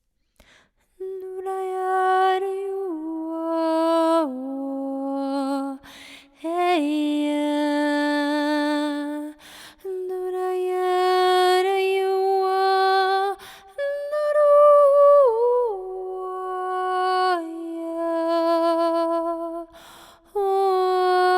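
A woman's voice singing wordless vocal toning for sound healing: slow, long-held notes that slide down from one pitch to the next, some with a gentle waver, broken by short pauses for breath.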